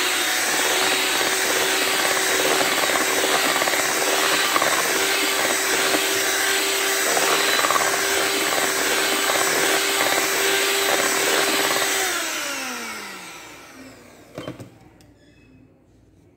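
Black+Decker electric hand mixer running steadily, its beaters whirring through thick cake batter. About twelve seconds in it is switched off and its pitch falls as the motor spins down, followed by a single light knock.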